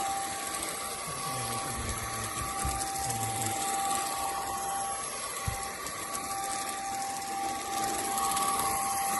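SMOTURE cordless stick vacuum with a brushless motor, running steadily: a constant whine over a wide rushing hiss.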